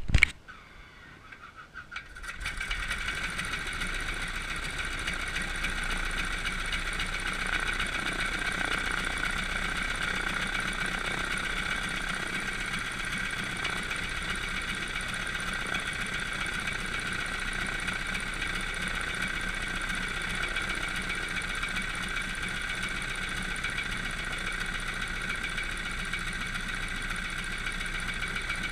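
Biplane's piston engine starts about two seconds in, then runs steadily at idle with its propeller turning.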